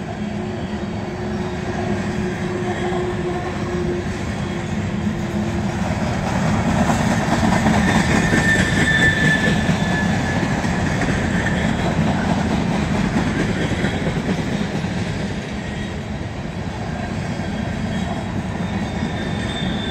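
Freight train of flatcars loaded with containers rolling past, a steady rumble and rattle of steel wheels on the rails that grows louder toward the middle and eases off again. A thin high wheel squeal rises briefly about halfway through.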